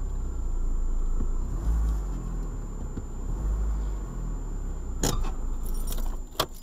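Car engine running, heard inside the cabin as a steady low rumble while the car rolls into a parking space and stops. About five seconds in come a sharp click and then several clicks and jangling keys, and the rumble falls away near the end.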